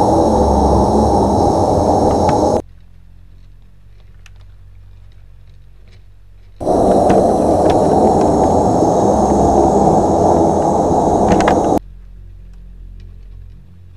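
Loud wind rushing over a microphone, with steady faint high tones above it. It comes in two stretches, each cut off abruptly to a quiet low room hum; the second stretch starts about a third of the way in and stops near the end.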